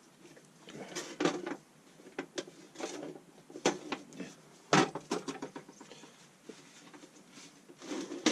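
Irregular clicks and knocks of a socket set being handled: metal sockets and their case being moved and set down, with a few sharper knocks among them.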